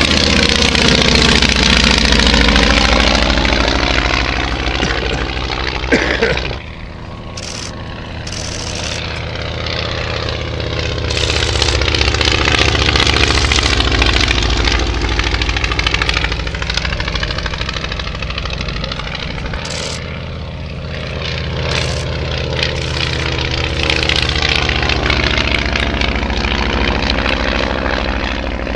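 Radial piston engines of vintage training aircraft droning as they fly their display, the sound swelling and fading and its tone sweeping up and down as they pass. A brief louder burst about six seconds in, after which the engines are quieter for a few seconds before building again.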